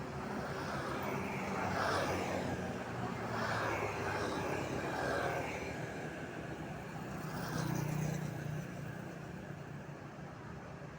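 Street traffic: vehicles pass one after another over a steady engine hum, with a swell about two seconds in and again around eight seconds.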